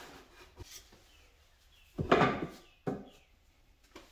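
Handling noises at a plywood storage box hung on a French cleat wall: a few faint clicks, then two brief wooden knocks with rubbing about two and three seconds in, as rags are pushed into the box.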